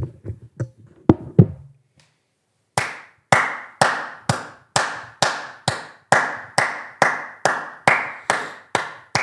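One person clapping hands at a steady, even pace, about three claps a second, starting about three seconds in. Before it come a few soft knocks and thumps.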